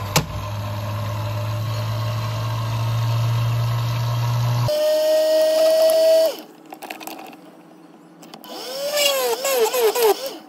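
Small bench drill press running while a small hole is drilled: a steady motor hum with a whine that stops a few seconds in. A run of short rising-and-falling squeaks comes near the end.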